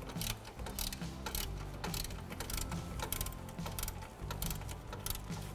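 Socket ratchet clicking in quick runs as the 14 mm adjuster bolt of a manual A/C belt tensioner is backed off, letting the tensioner down to slacken the belt.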